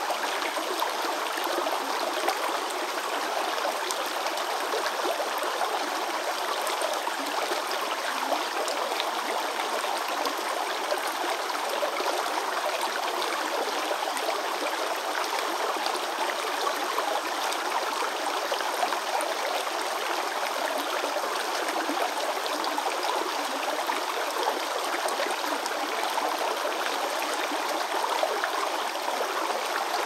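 A small forest brook babbling steadily, an even rush and trickle of water with no deep rumble.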